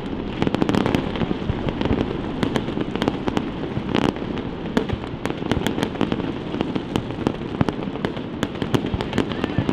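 Aerial fireworks going off in quick, irregular succession: many sharp pops and crackles over a continuous low rumble.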